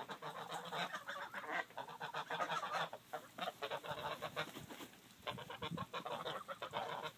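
A flock of young domestic geese honking and gabbling in quick, overlapping calls, with a short lull about two-thirds of the way through.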